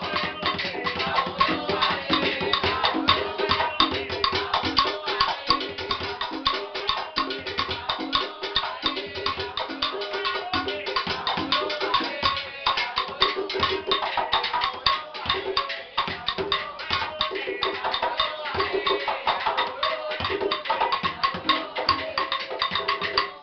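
Live Cuban rumba percussion: a conga drum and a wooden cajón played by hand in dense, interlocking rhythms.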